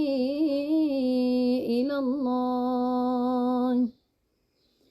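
A woman's voice reciting the Qur'an in melodic tajweed style, holding the last vowel of the phrase in one long sung note with small pitch turns. It cuts off about four seconds in.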